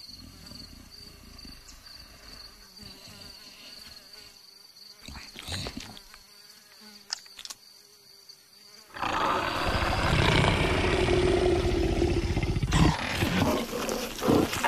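A steady high insect drone for about nine seconds, then a leopard's loud growl lasting about four seconds, followed by a few sharp knocks.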